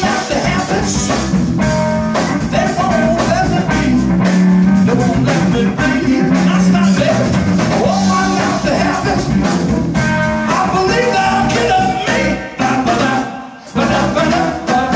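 Blues-rock band playing live: electric guitar, bass guitar and drum kit with the singer's voice on top. Near the end the band breaks into a few short loud hits with gaps between, as the song closes.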